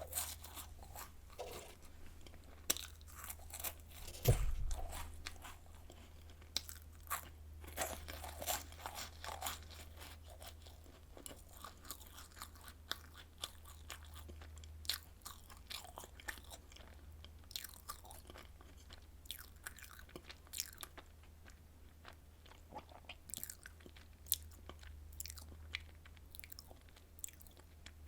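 Close-miked crunching and chewing of Home Run Ball chocolate-filled puff cookies, made extra crisp in an air fryer. Sharp crackles come thick in the first half and thin out to sparser chewing later. There is a low thump about four seconds in, over a steady low hum.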